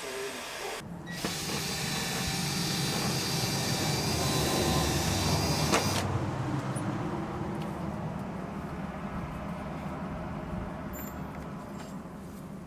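A handheld power tool running, with a loud grinding hiss that cuts off suddenly about six seconds in. The motor hum then dies away slowly, like a tool coasting down after release.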